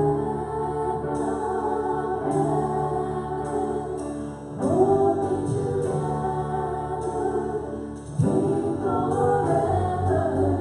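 Women's voices singing a worship song into microphones over instrumental accompaniment, in three phrases that start at the beginning, about four and a half seconds in, and about eight seconds in.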